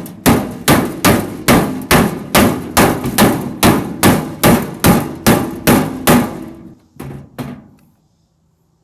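Rapid, steady hammer blows on a truck tool box panel, knocking out a dent, about two and a half strikes a second, each with a short metallic ring. Two lighter taps follow about seven seconds in.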